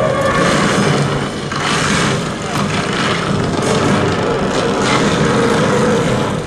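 Soundtrack of an animated film played loud over the demo room's loudspeakers: a dense mix of sound effects and music that starts abruptly.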